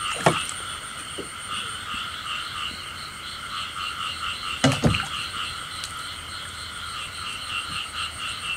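Chorus of frogs croaking in rapid pulsing calls, with a steady high-pitched insect trill over it. Two short knocks stand out, one just after the start and one about halfway through.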